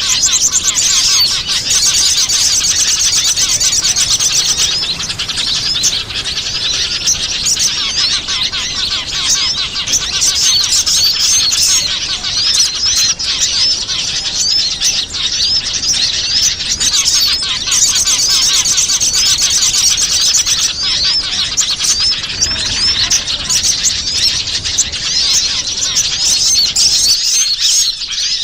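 Dense, unbroken chorus of many small songbirds chirping and twittering in rapid, overlapping high calls. It is a bird-lure (pikat) recording played to draw in wild small birds.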